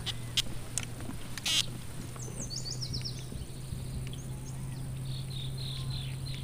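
Small birds calling: a quick run of high chirps falling in pitch about two and a half seconds in, and another run of chirps near the end. Under them runs a steady low hum, with a few sharp clicks in the first second and a half.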